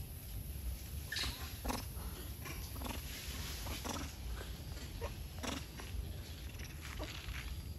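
Macaque calls: a string of short, high squeaks and chirps at irregular intervals, roughly one or two a second, over a low steady rumble.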